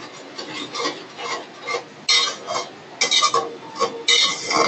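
A spoon stirring masala with a little water in a metal pot, scraping against the pot's sides and bottom in irregular strokes that get louder from about two seconds in.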